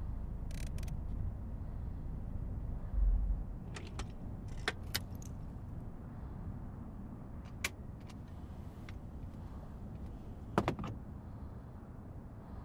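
A car's low rumble heard from inside the cabin, with a heavy low thump about three seconds in and a scattering of sharp clicks and rattles through the rest.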